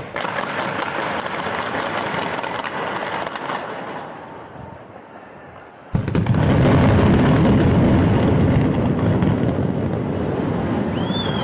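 Controlled implosion of a high-rise apartment tower: a rapid crackling volley of demolition charges fires for about three seconds and dies away, then about six seconds in the heavy, deep rumble of the building collapsing starts suddenly and carries on. Near the end a high whistle rises and holds.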